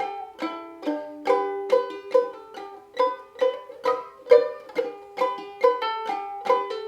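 Ukulele in standard gCEA tuning played clawhammer style: a steady, bouncy run of struck melody notes and brushed strums, about three strokes a second.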